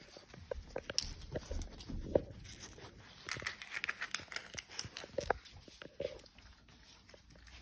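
Puppies moving about on a hard floor and licking, making scattered clicks, scuffs and wet licking noises, with a denser patch of crackle a little past the middle. Near the end a cup crinkles as it is cut open with scissors.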